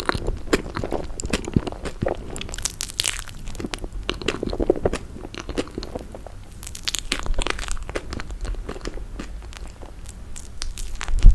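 Close-miked eating of toasted marshmallow: crunching bites into the crisp toasted outside and sticky chewing, in uneven clusters of crackles. A single louder thump comes near the end.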